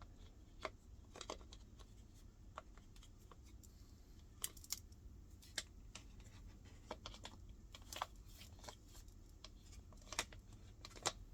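Faint, scattered light clicks and taps of a washing machine's drain pump mount and its parts being handled and fitted into place, at irregular intervals.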